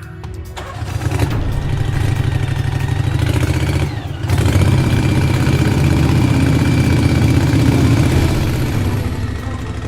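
A motor or engine running with a steady, rapidly pulsing low rumble. It breaks off briefly about four seconds in, then comes back louder before easing off near the end.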